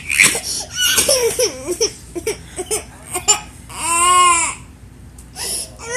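Toddlers squealing and fussing as they tussle over a bottle, a run of short cries and yelps, then one long wailing cry about four seconds in.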